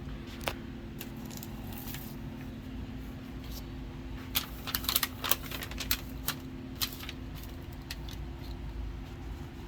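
Paper instruction sheets being handled and turned: sharp crinkles and clicks, one about half a second in and a dense cluster in the middle, over a steady low hum.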